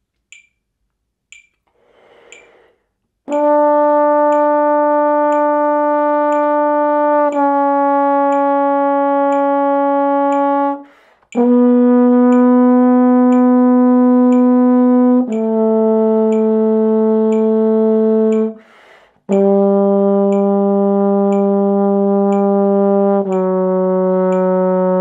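Trombone playing a descending D major scale in whole notes, from high D down through C sharp, B, A and G to F sharp. Each note is held about four seconds, with a breath taken after every second note. A metronome clicks once a second throughout.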